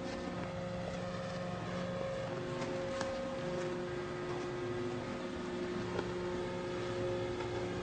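Gasoline-engine wood chipper running steadily, a constant engine drone with a few faint clicks.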